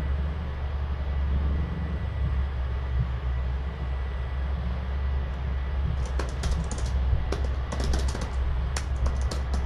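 A steady low hum, joined about six seconds in by quick irregular runs of light clicks, like typing on a keyboard.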